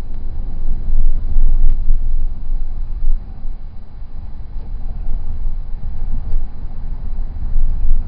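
Low road and engine rumble inside a moving Subaru's cabin, with a few faint, short rattles from the sunroof, including about four and six seconds in. The rattle persists after a dealer repair that was supposed to have fixed it.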